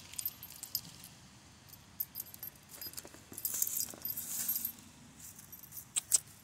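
Mastweiler puppy digging in a dirt hole among dry fallen leaves: scattered bursts of scratching and leaf rustling, with the metal chain on her collar clinking now and then and a few sharp clicks near the end.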